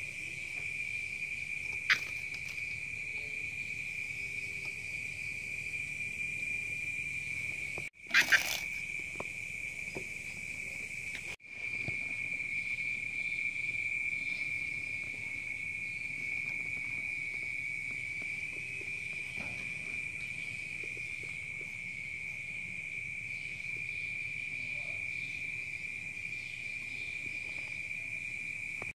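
Crickets trilling in one steady high-pitched note without a break. The sound drops out briefly twice, and there is a short loud knock about eight seconds in.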